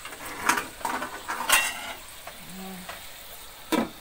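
Metal spatula scraping and clattering in an aluminium wok of stir-frying broccoli and fried tofu over a light sizzle. Near the end, a single loud clang as the aluminium lid is set on the wok to cover it.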